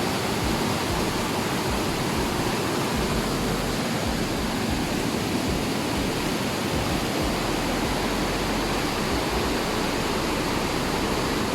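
Rushing water of a river running full after heavy rains, a steady, unbroken rush of noise.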